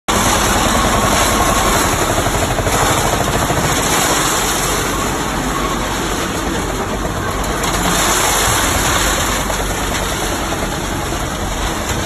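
Self-loading concrete mixer truck's engine running steadily.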